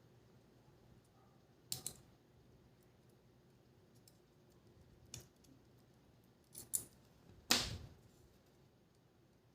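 Small tools and camera parts clicking and tapping as a GoPro Hero5 Black is taken apart: a handful of sharp clicks, a double one about two seconds in, more near five and seven seconds, the loudest and longest about seven and a half seconds in.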